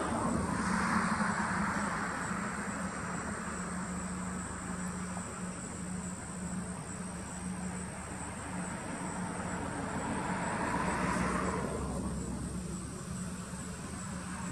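Distant road traffic: a steady low hum with the rush of passing vehicles, which swells and fades twice, near the start and about ten seconds in.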